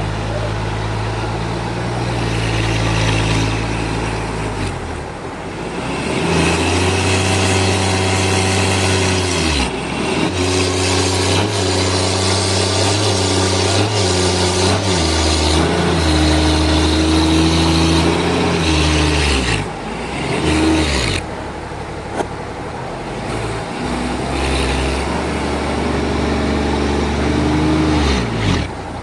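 Sawmill engine running steadily, its pitch dipping and recovering several times as the saw comes under load, over a hiss of the blade cutting through a trembesi log.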